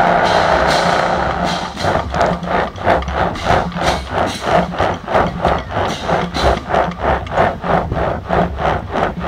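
Drum corps brass line holding a loud sustained chord, then, about a second and a half in, switching to short repeated notes in strict time, about two a second.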